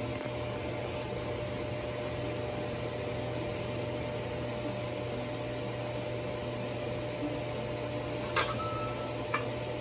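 A steady mechanical hum, with two sharp clicks near the end.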